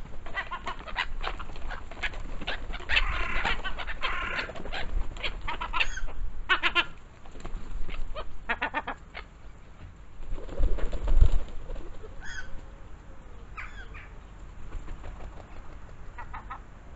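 A feeding flock of gulls, mostly black-headed gulls, calling repeatedly with short harsh calls, with wingbeats as they jostle. A low rushing thump about eleven seconds in is the loudest sound.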